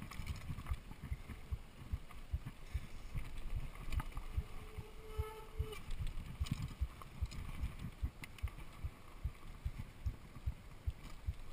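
Mountain bike jolting over roots and rocks on a dirt trail: a dense, irregular run of low knocks and rattles from the bike and the handlebar camera mount. A brief squeal sounds about halfway through.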